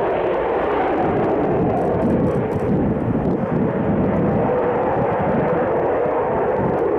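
Airplane engines running loud and steady: a continuous rushing noise with a faint drifting tone.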